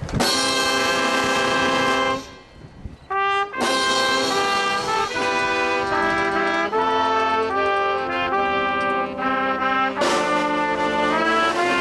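Brass music playing slow, held chords. About two seconds in the chord breaks off, a quick rising run of notes follows, and the chords resume, swelling again near the end.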